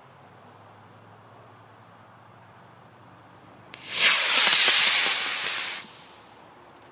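Rocket motor firing at launch: a sudden loud hissing rush that starts about halfway through and fades away over about two seconds as the rocket climbs off.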